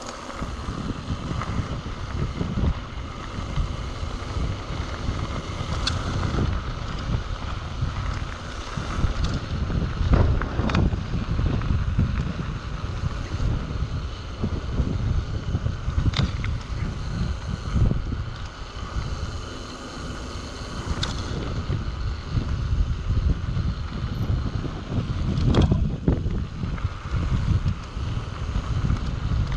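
Wind buffeting the microphone of a camera on a mountain bike running down a dirt track, with the tyres rumbling on loose gravel. A handful of sharp knocks come a few seconds apart as the bike jolts over bumps.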